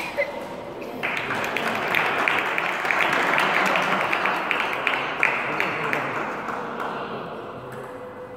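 Spectators clapping in a sports hall: a round of applause starts about a second in and fades away over several seconds. Just before it come a couple of sharp ticks from the table tennis ball.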